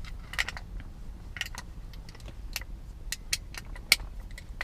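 Scattered metallic clicks and clinks of a ratchet with a 19 mm socket working the steering wheel's retaining bolt, irregularly spaced with a sharper click near the end.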